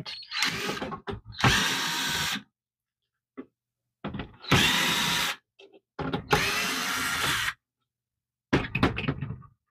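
Cordless electric screwdriver with a Torx T10 bit backing screws out of a printer's plastic housing. It runs in four short bursts of about a second each, with pauses between, and a few light clicks near the end.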